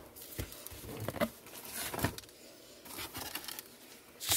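Wax packs of baseball cards and their cardboard box being handled: scattered rustles and light taps, with a sharper knock near the end.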